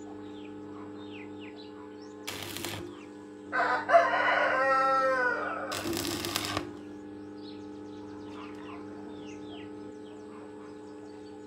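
A rooster crowing once, a call of about two seconds that begins about three and a half seconds in and is the loudest sound. Short scraping or hissing noises come just before and just after it, over a steady hum and faint high bird chirps.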